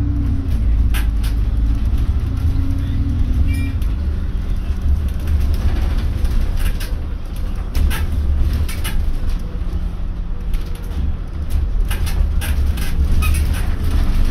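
Double-decker bus running along a street, heard from the upper deck: a steady low engine and road rumble with frequent small clicks and rattles.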